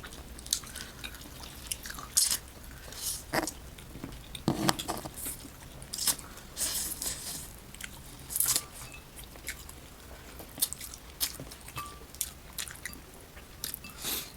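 Close-miked chewing and crunching of lightly fried crab, with irregular crisp cracks and bites.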